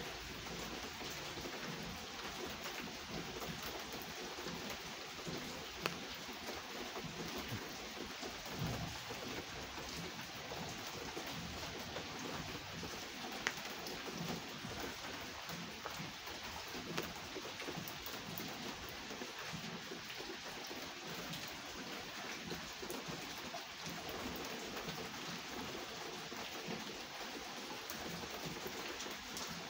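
Steady autumn rain falling on a wet wooden deck table, with a few sharp ticks about 6, 13 and 17 seconds in.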